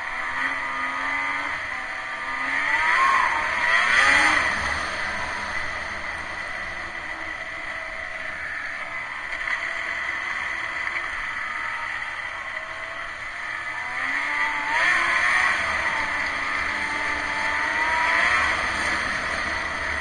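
Snowmobile engine running at speed, revving up about three seconds in and again from about fifteen seconds in, easing back in between. Heard through an action camera's waterproof case, with little wind noise.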